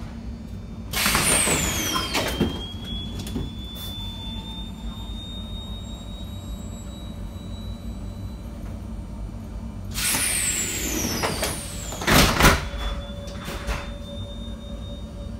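Tram doors opening with a loud hiss and a falling whistle about a second in, then closing about ten seconds later with another hiss and two knocks as they shut. A faint thin high tone sounds while they stand open.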